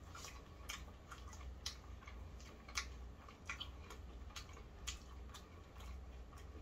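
Close-up mouth sounds of people chewing fried chicken: faint, irregular soft clicks and smacks over a low steady hum.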